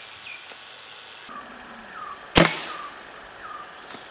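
Air rifle shot: one loud, sharp crack about two and a half seconds in, with a short decaying tail.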